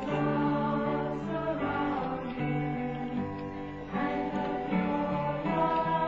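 Music with acoustic guitar and singing.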